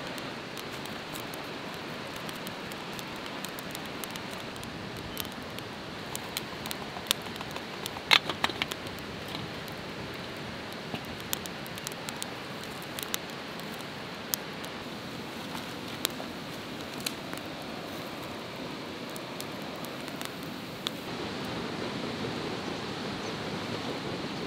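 Small twig campfire crackling, with scattered sharp pops over a steady rushing background. About eight seconds in there is a louder cluster of clicks and knocks as a metal coffee percolator is handled and set on the stones by the fire.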